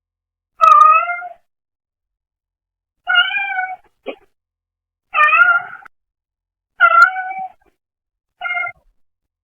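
A brown tabby house cat meowing repeatedly: five short, pitched meows about one and a half to two seconds apart, the last one shorter, with a very brief extra sound just after the second. The calls are picked up through a pet camera's microphone.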